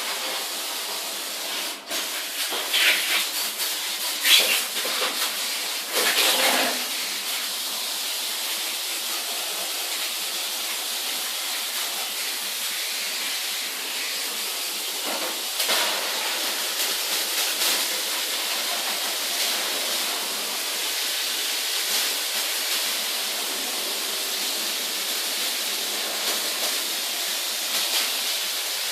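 Steady hissing water spray from a high-pressure jet, with several louder surges in the first seven seconds and one more about halfway through.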